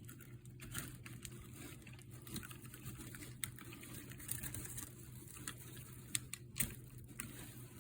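Faint, scattered small clicks and light taps from hands working the cordless cellular blind's plastic mechanism and lift string, over a steady low hum.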